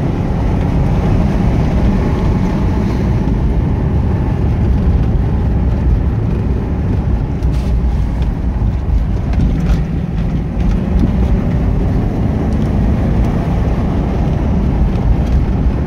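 Mercedes-Benz W126 560 SEL's M117 V8 pulling steadily in a low gear, heard from inside the cabin over a constant rush of road noise.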